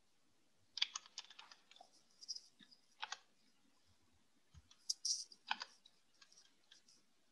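Faint, irregular clicks of typing on a computer keyboard: a quick run of keystrokes about a second in, a single click near three seconds, and another short cluster around five seconds.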